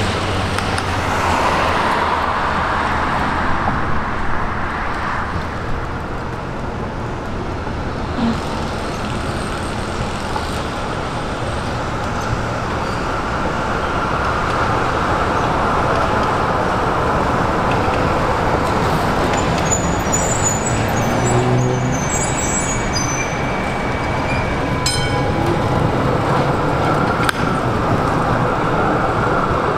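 Melbourne B2-class trams running past along the street, a steady hum of traction motors and steel wheels on the rails mixed with passing road traffic. A few brief high chirps come about two-thirds of the way through.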